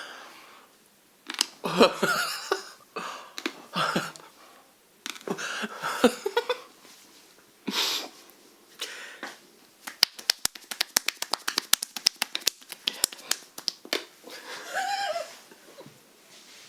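Hands working during a chiropractic massage: scattered short knocks and brief gasps, then about ten seconds in a fast run of sharp clicking taps, about seven a second for some four seconds. A short groan follows.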